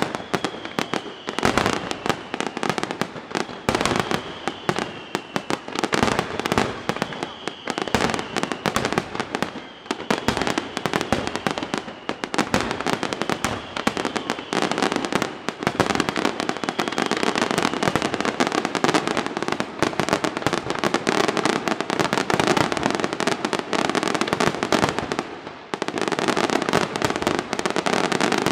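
Aerial fireworks display: shells bursting in a rapid, continuous barrage of bangs and crackles. Through the first half a faint high tone slides slightly downward again and again, about every two seconds. After a brief lull near the end the bursts grow denser.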